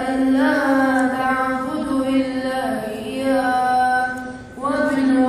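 A boy's voice chanting melodically into a microphone in long held notes that bend and slide between pitches, with a brief breath about four and a half seconds in.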